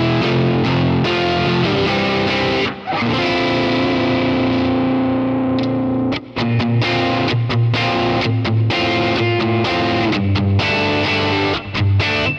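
Electric guitar played through a Kemper Profiler amp profile (a Deluxe Reverb profile with a Fender Champ tone stack, bass turned up): strummed chords, one held ringing from about three seconds in, then shorter choppy chords with brief gaps.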